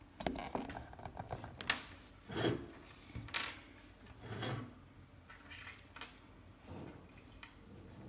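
Handling noise of a shielded network cable being worked by hand: irregular light clicks, rubs and short rustles as the thin twisted wire pairs are untwisted and straightened between the fingers.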